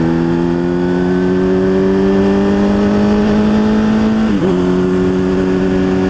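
2006 Kawasaki ZX-10R inline-four running through a Two Brothers M-2 slip-on exhaust with the catalytic converter deleted, a smooth, low growl. The revs rise slowly under light throttle, dip briefly about four seconds in, then hold steady.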